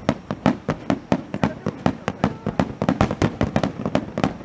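Aerial firework shells bursting overhead in a rapid, irregular string of sharp bangs, several a second.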